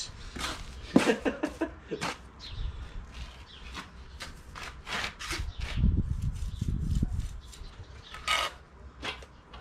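Brick trowel scraping and slapping mortar as bricks are laid, with a run of short scrapes and taps and a sharp knock about a second in.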